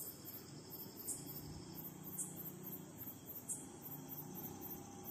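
Faint high-pitched insect chirping, repeating evenly, over a low background hum.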